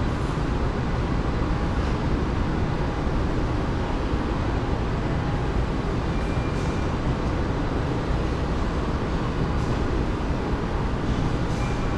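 Steady low rumbling background noise of a large airport terminal hall, with a faint short high beep about six seconds in and again near the end.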